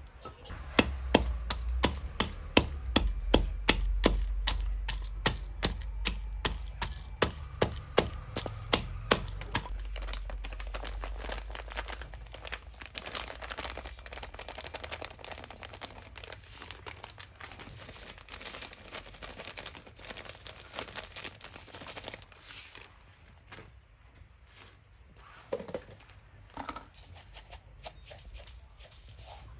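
Food-preparation sounds: a run of sharp knocks about two a second over a low rumble, then a denser crackling and rustling that thins out to scattered clicks near the end.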